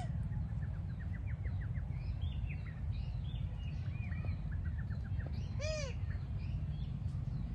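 Animal calls: quick chirping trills and a few short calls that rise and fall in pitch, one at the start and a louder one about two thirds of the way through, over a steady low rumble.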